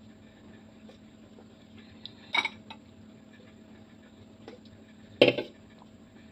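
Two sharp clinks on a table about three seconds apart. The second and louder one is an aluminium drink can being set down on the table.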